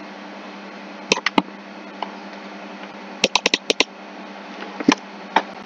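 Clicks of a computer keyboard and mouse: a few single clicks about a second in, a quick run of about seven around three seconds in, and two more near the end, over a steady low hum and hiss.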